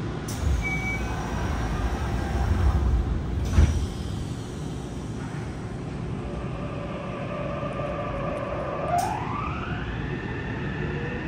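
Subway car doors close with a sharp knock about three and a half seconds in, after a short beep near the start. Near the end, the Mitsubishi IGBT-VVVF inverter of the Yokohama Blue Line 3000S train starts up as it pulls away: a whine rising in pitch, then holding steady over the traction motor hum.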